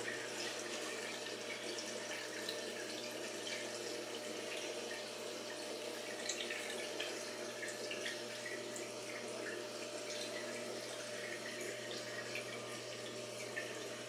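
Steady trickle and bubbling of water in a home reef aquarium's filtration, with a low steady hum and scattered small drips and pops.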